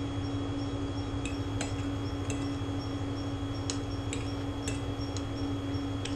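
Scattered light clicks of a fork and knife against a dinner plate while eating, about seven in a few seconds, over a steady low hum.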